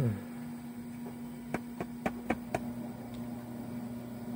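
Steady electrical hum with a quick run of five light clicks about a second and a half in, the tapping of multimeter probes on the video card's board while it is checked for a short.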